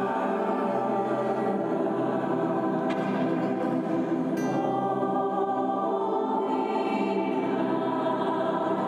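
A small mixed-voice choir singing Christmas music in long held chords, changing chord about four and a half seconds in. The notes ring on and blend in the long reverberation inside a large old steel railroad water tank.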